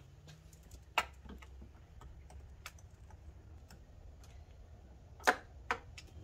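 Scattered metallic clicks and ticks from a quarter-inch socket on a long extension as the loosened crankshaft position sensor bolt is backed out by hand, with two louder clicks about five seconds in.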